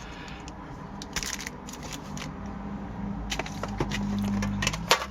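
Light handling sounds of hockey card packs and packaging: scattered small clicks and rustles.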